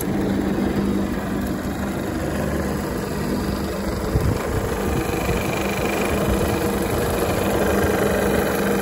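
Hafco Metalmaster BS-7L horizontal metal-cutting band saw switched on with a click of its toggle switch, then its electric motor and blade drive running steadily with a constant hum.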